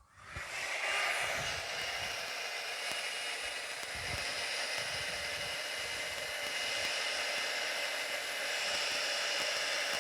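Hair dryer switched on and blowing steadily across wet poured acrylic paint to push it out into a bloom, with low gusts of air buffeting the microphone.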